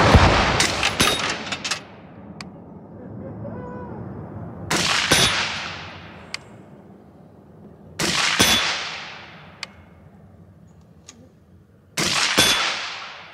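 Suppressed 5.56 mm AR-15 rifle (BCM Recce 16) firing single shots of 55-grain ammo, four shots about four seconds apart. Each crack is sharp and dies away in a long echo.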